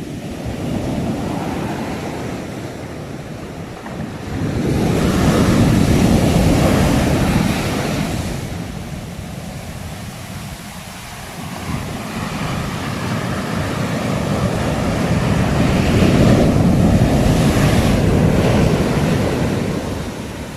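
Sea waves surging and breaking on the shore in a steady wash, with two big waves building and crashing, about five seconds in and again around sixteen seconds, each fading back over a few seconds.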